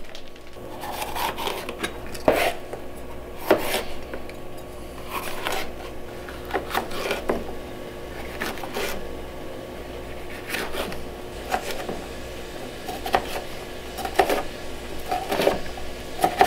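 Knife cutting bell peppers on a cutting board: irregular sharp knocks of the blade on the board, roughly one a second, with rubbing and scraping between the cuts.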